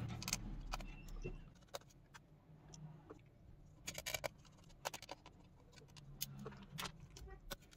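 Faint, scattered small clicks and taps of a screwdriver undoing the screws of a laptop's aluminium shield plate, with some in quick little clusters.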